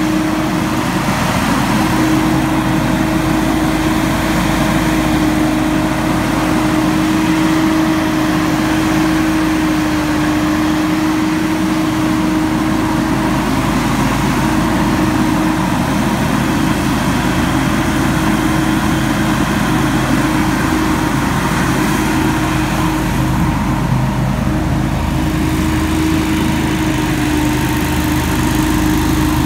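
Hurricane X3 stand-on leaf blower running at full power, its gas engine and large fan giving a loud, steady drone whose pitch dips slightly now and then as it blows leaves.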